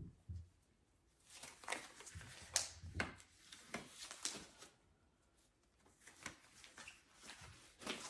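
Disposable nitrile exam gloves being pulled onto the hands: faint rustling and crinkling with a few sharp snaps, with a pause about halfway through.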